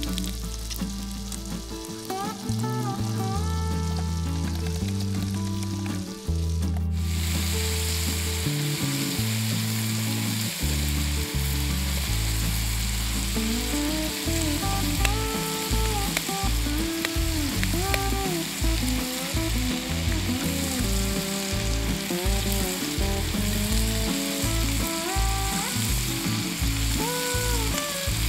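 Diced pork belly sizzling as it fries in a pan over a gas camping stove, the sizzle coming in suddenly about seven seconds in. Background music with a bass line and melody plays throughout.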